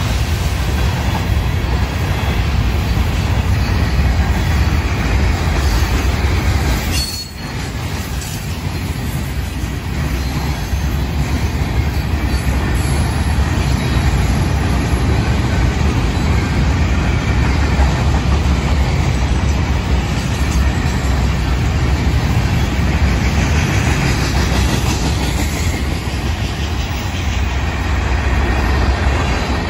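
Freight cars of a BNSF manifest train (covered hoppers, boxcars and gondolas) rolling past: a steady, loud rumble of steel wheels on rail. The sound dips briefly about seven seconds in.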